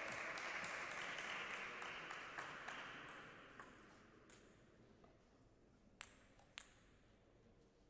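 Table tennis ball bouncing between points: a series of short, sharp pocks with a bright ringing edge, faint at first, then two louder ones about six seconds in, half a second apart. Under them a hiss of hall noise fades away over the first few seconds.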